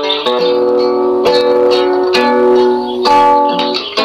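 Background music of plucked strings, like an acoustic guitar, playing a light melody.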